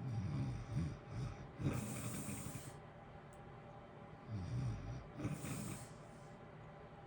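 A sleeping person snoring twice. Each breath is a low rattling snore followed by a hissing out-breath, over the steady hum of a heater.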